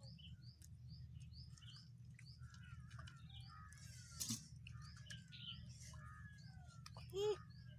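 Small birds chirping repeatedly with short falling whistles over a faint steady low hum. A brief burst of noise comes about four seconds in, and a short voice-like sound near the end.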